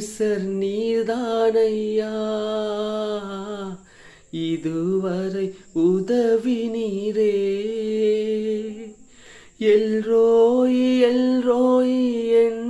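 A man singing a Tamil Christian song unaccompanied, in long held notes with brief breaths between phrases.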